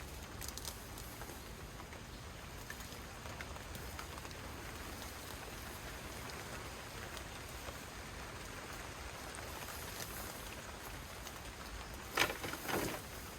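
Steady rain falling on outdoor surfaces, with two short, louder rustling knocks close together near the end.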